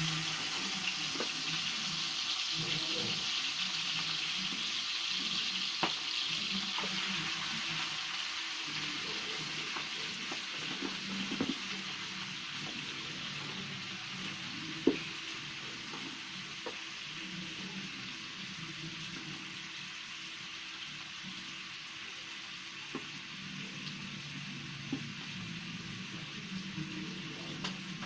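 Meat sizzling in hot oil in a frying pan over a wood fire: a steady hiss that eases a little after the first several seconds, with a few sharp clicks, the loudest about halfway through.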